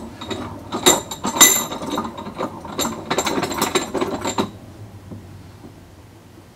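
Steel pliers clicking, scraping and prying at hardened PLA plastic crusted on a 3D printer's hot end, working it loose. A quick, irregular run of clicks and scrapes that stops about four and a half seconds in.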